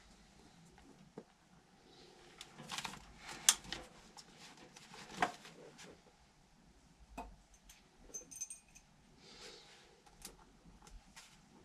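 Scattered light clicks, knocks and metallic clinks of hand tools and metal parts being handled, with two sharper clinks about three and a half and five seconds in, and a brief thin high tone a little after the middle.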